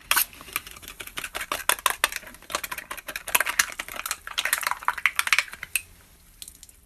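Teeth biting and scraping at the top of an aluminium drink can, a rapid, uneven run of clicks and crunches that stops about six seconds in, followed by a soft fizz as the can is pierced.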